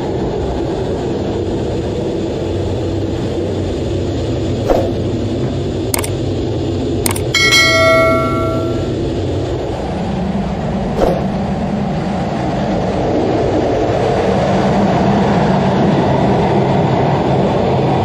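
Steady roar of an F-16 fighter jet heard from inside the cockpit during the climb after takeoff. Partway through, a few clicks and a brief bell ding of about a second come from a subscribe-button sound effect.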